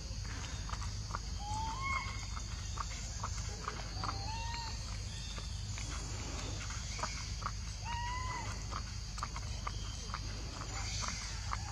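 Outdoor ambience of short whistled animal calls, each rising then falling, heard several times over a steady high hiss, with scattered small clicks throughout.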